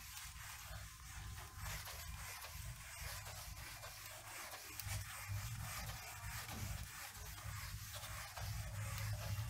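Whiteboard eraser being rubbed back and forth across a whiteboard: a soft, irregular scrubbing sound, over a low steady hum.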